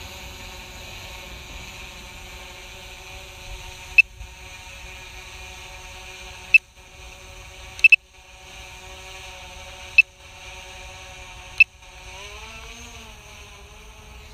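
Small quadcopter drone's motors and propellers whining steadily, the pitch wavering and gliding up and down near the end as the motors change speed. Sharp clicks cut in about every two seconds, one of them doubled, each followed by a brief drop in the sound.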